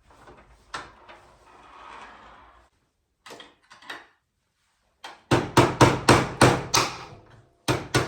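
Hammer driving a snowbike footpeg pivot pin into its mount: a quick run of about eight strikes, about four a second, starting about five seconds in, then after a short pause two more near the end. Before that, softer clicks and rustling as the parts are handled.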